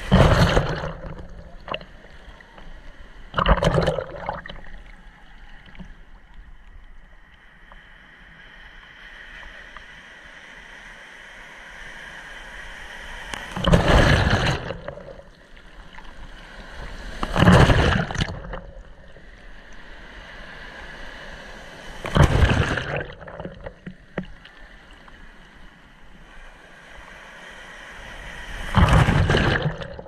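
Shallow ocean surf washing over a camera held at the waterline: about six loud rushing splashes as waves break over it, with the steady hiss of foam between them.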